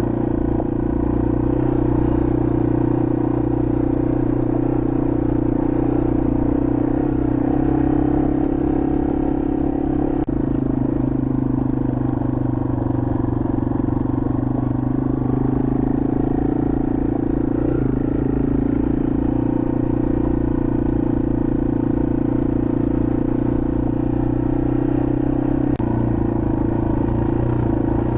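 Yamaha TW200's single-cylinder four-stroke engine running steadily as the dirt bike rides along a forest trail, heard from on board. The engine note shifts slightly about ten seconds in and again near the end.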